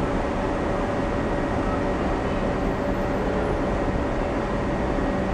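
Steady hum and rumble of a subway train standing at the station, with a constant whining tone held over it.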